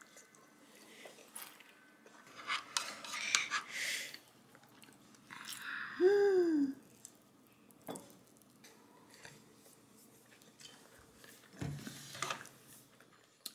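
Eating sounds: kimbap being chewed, with training chopsticks clicking on the bowl and light knocks as the bowl is moved. About six seconds in there is a short, louder sound that rises then falls in pitch.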